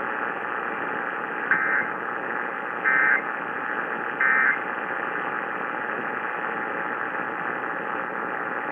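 Three short bursts of EAS end-of-message data tones, a harsh two-tone digital warble, about a second and a half apart, over steady AM radio static hiss.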